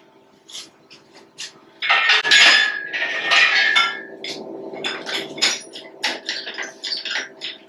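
Metal parts and tools clanking during a machine teardown: scattered knocks, then a loud stretch of metal scraping with a ringing tone from about two to four seconds in, followed by a rapid run of light metallic knocks and clinks.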